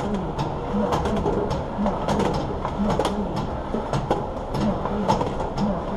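Automated sorting machine and its roller conveyor running: a steady low mechanical pulse about twice a second under a stream of irregular sharp clicks and clatter.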